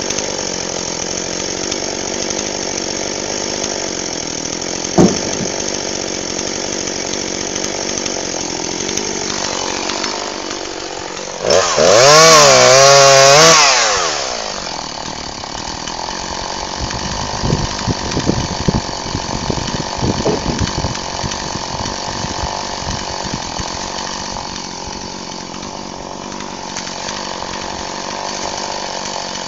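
Jonsered chainsaw running at idle, then revved hard for about two seconds, its pitch wavering up and down as it bites into wood. A stretch of irregular knocks and clatters follows.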